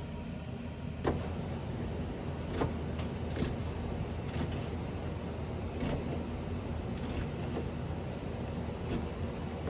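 Spoons or chopsticks clicking against dishes at a meal, about eight separate light knocks, over a steady low hum.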